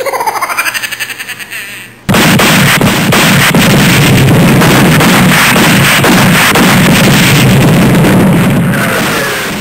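A boy making sound effects with his voice: a fast rattle like machine-gun fire that fades over about two seconds, then a long, loud, distorted blast like an explosion, crackling for several seconds before it dies away near the end.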